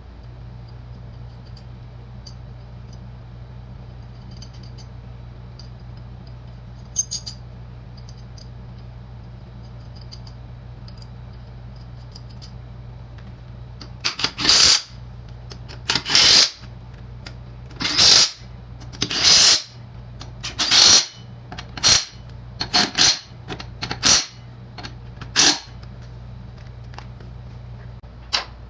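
A run of short bursts from a compressed-air tool working on the mower's tires, eight or nine of them about a second or two apart starting about halfway through, over a steady low hum.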